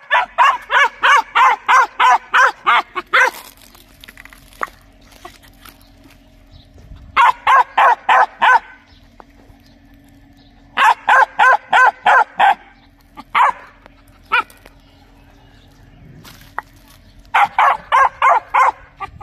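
Young dog barking in fast runs of about four barks a second, in four bouts separated by pauses, with two single barks between the third and fourth bouts.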